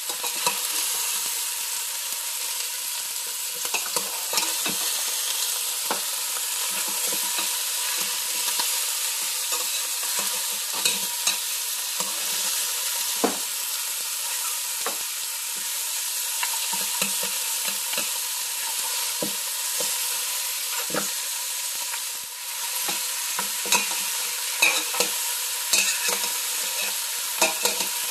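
Beef bone chunks sizzling as they sear in a stainless steel pot, with a metal spoon scraping and clinking against the pot as they are turned, many short clicks over a steady hiss.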